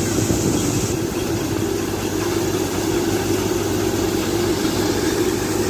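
Wheat thresher running steadily under its engine, a continuous mechanical drone. A higher hiss over the drone drops away about a second in.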